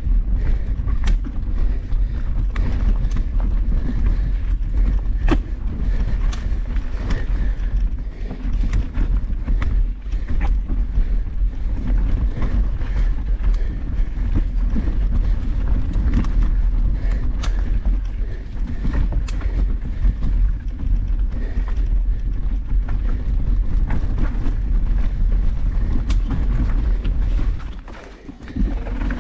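Mountain bike being ridden over a rocky trail: wind rumbling on the microphone, with scattered clicks and rattles from the bike over the rocks. The noise drops briefly near the end.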